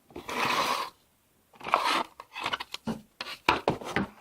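Headphone packaging being handled: a rubbing scrape of cardboard and plastic in the first second, then a run of short rustles and scrapes.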